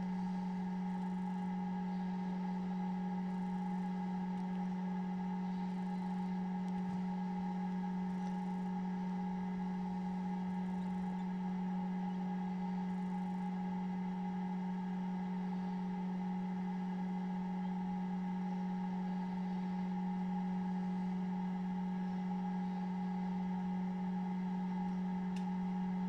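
Steady electrical hum of an egg incubator's fan: a constant low drone with a few fainter higher tones above it.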